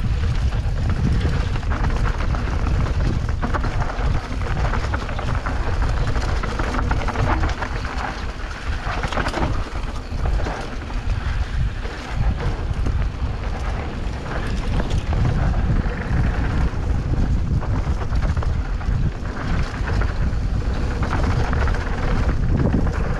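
Wind buffeting the microphone of a camera riding on a mountain bike descending a dirt trail, with a heavy low rumble, the tyres rolling over dirt and the bike rattling in many small clicks.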